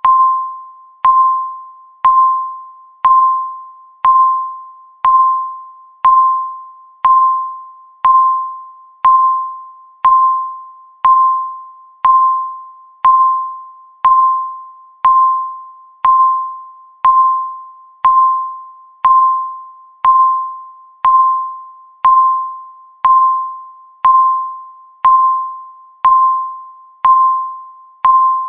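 Countdown timer's electronic tick: one short, ringing, mid-pitched beep every second, each struck sharply and fading away before the next.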